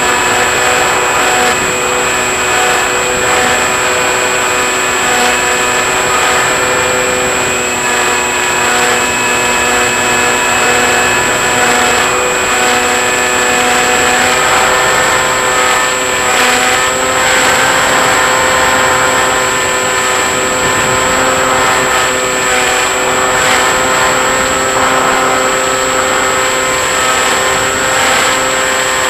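Model airplane's motor and propeller running steadily in flight, heard from a camera on the plane: a steady whine whose pitch shifts slightly now and then, over rushing wind.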